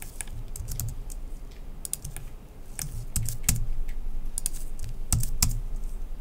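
Computer keyboard keystrokes: irregular clicks, some in quick runs, with a few heavier key thumps.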